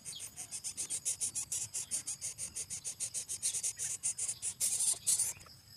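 Insect chirping: a rapid, even train of high-pitched pulses, about ten a second, which stops near the end.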